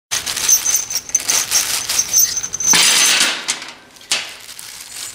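A small plastic bag of new clutch bolts rustling and crinkling in the hands, with the bolts tipped out and clattering onto a steel plate, loudest a little before the middle, followed by a few lighter clinks as they settle.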